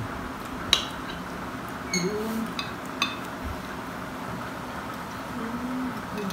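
A spoon clinking on a plate, about four light ringing clinks in the first three seconds, over the steady hum of electric fans.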